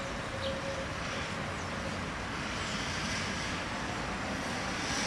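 Tatra KT4D articulated tram approaching along the track, a steady rolling rumble that grows a little louder near the end.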